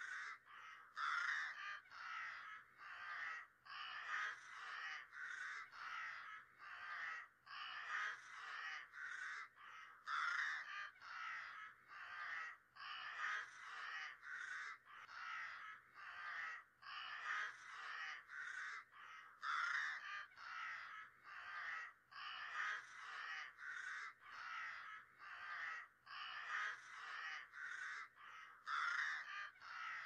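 A flock of crows cawing continuously, many short calls overlapping, with louder swells of calling about every nine seconds.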